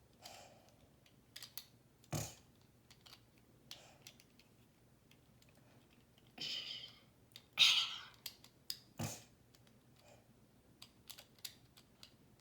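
Plastic Lego bricks being handled and snapped together: scattered light clicks and knocks, with two louder hissy rustles of about half a second near the middle.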